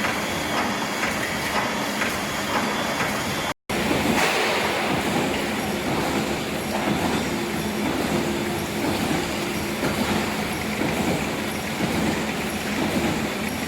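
Automatic rubber-shaft wire mesh welding machine running, with a steady mechanical clatter and faint repeated clicks as it feeds and welds the wire. The sound drops out for an instant about three and a half seconds in.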